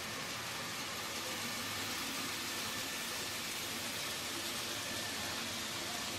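N-scale model freight train rolling through a wooden helix: a steady, even hiss of many small wheels on the track.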